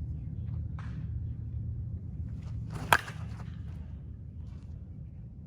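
A single sharp crack of a two-piece Ikonic Firecracker senior softball bat striking a softball, about three seconds in, with a brief ring after contact. A steady low background rumble runs underneath.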